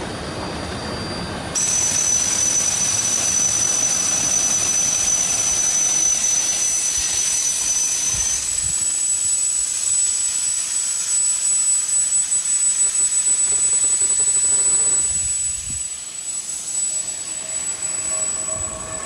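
Steam train sound: a steam locomotive's steady rushing hiss. It jumps up suddenly about a second and a half in, with a faint high whine over it, and drops back about fifteen seconds in.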